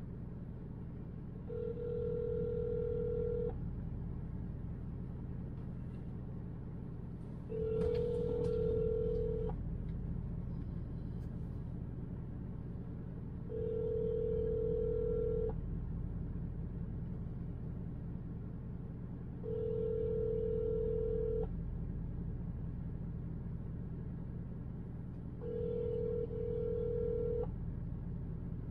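Telephone ringback tone heard over the phone line: five rings of about two seconds each, repeating every six seconds. The outgoing call is ringing through to the company's queue, waiting to be answered.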